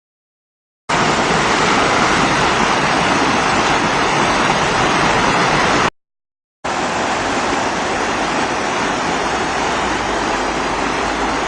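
Rushing stream water, a loud, steady spread of noise, in two separate takes: the first begins about a second in and cuts off abruptly just before six seconds, and the second begins less than a second later.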